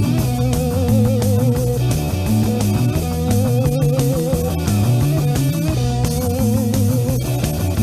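Instrumental break in a rock and roll song: electric guitar over bass and drums, with held notes that waver in pitch.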